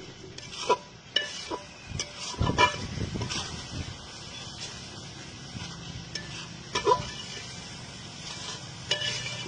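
Metal spatula scraping and knocking against a large aluminium pan as a thick tomato masala is stirred, over a steady sizzle of frying. The knocks come irregularly, loudest about two and a half seconds in and again near seven seconds.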